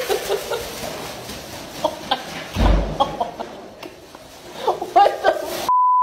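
Short, scattered clucking vocal bursts, a dull thump about two and a half seconds in, and near the end a brief steady beep tone that mutes everything else: a censor bleep.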